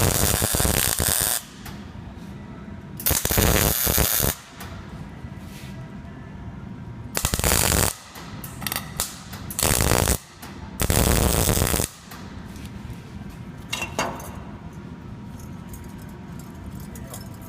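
Welding arc crackling in short bursts of about a second each, five main ones and a few shorter strikes, with a steady low hum between them.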